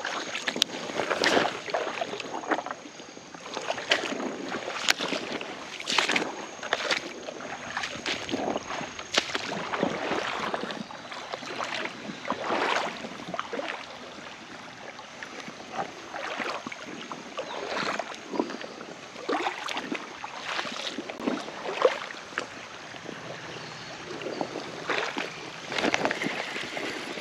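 Footsteps wading through a shallow, rocky creek: water sloshing and splashing around the legs with each stride, about once a second.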